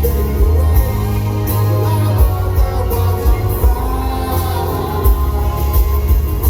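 Rock band playing live, loud: steady drums with cymbal hits over bass and guitars, with a singing voice.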